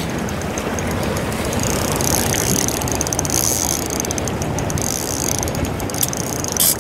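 Spinning reel giving off a fast, steady ratcheting click while a hooked fish is played, over a steady rush of river and wind noise. The clicking stops about 6 seconds in, followed by a single sharp click.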